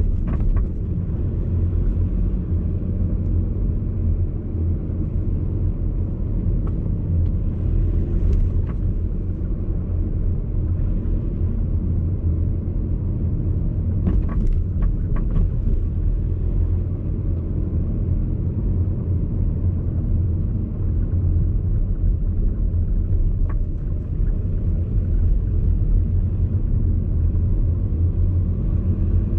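Inside the cabin of a VW Golf Alltrack driving slowly: a steady low road rumble with a handful of short clicks and knocks scattered through. The knocks are the rattle from the front passenger-side suspension that shows up over road irregularities and in left turns.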